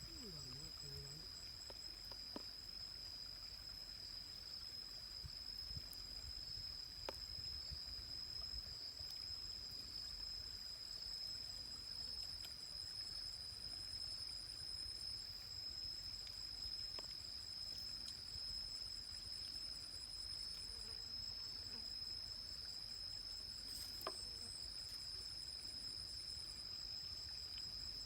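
Forest insect chorus: several high, continuous trills at different pitches, one of them pulsing in long runs that stop and start again. A faint low rumble runs underneath.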